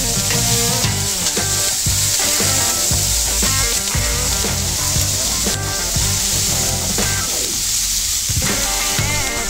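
Sliced onions sizzling as they fry in hot olive oil on a steel griddle plate, a steady high hiss, with background music playing over it.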